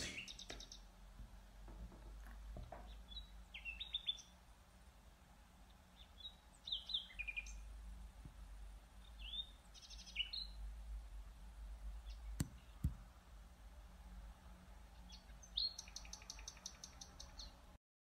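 Nightingale singing faintly: short whistled phrases and rapid runs of repeated notes, with pauses between them, over a low steady rumble.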